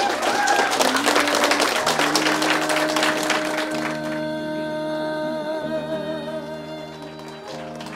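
A crowd of guests applauding for about four seconds over background music, after which the music carries on alone with slow, held, wavering notes.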